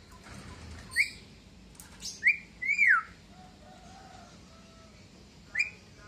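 Caged Javan myna giving short whistled calls: a quick rising note about a second in, two loud arched whistles around two and three seconds, and a brief call near the end.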